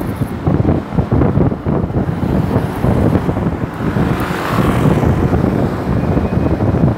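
Wind buffeting the microphone on a moving scooter: a loud, uneven rush of air, with a swell of noise about halfway through as a car passes alongside.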